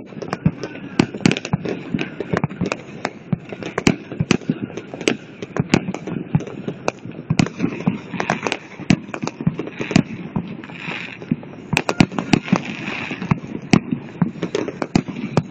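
Fireworks going off: a dense, irregular run of sharp bangs and crackles, several a second, with no pause.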